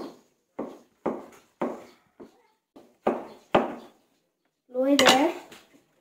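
Kitchen knife chopping fresh ginger on a wooden cutting board: about seven separate strokes, roughly two a second, over the first four seconds. A brief voice follows about five seconds in.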